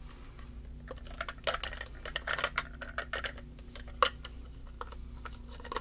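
Red plastic measuring cups clicking and clacking together as they are handled, a quick run of light knocks with one sharper clack about four seconds in, over a steady low hum.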